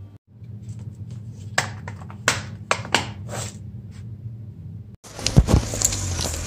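A hard plastic banana case and a pear being handled on a wooden tabletop: a quick run of light plastic clicks and knocks over a low steady hum. About five seconds in it switches to outdoor street noise with low thumps on the microphone.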